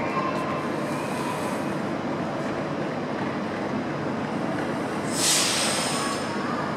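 Class 323 electric multiple unit standing at the platform, its onboard equipment giving a steady hum. About five seconds in, a short burst of hiss.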